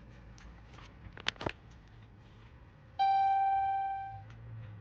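Two sharp clicks about a second in, then a single electronic chime about three seconds in: one tone that fades away over a little more than a second.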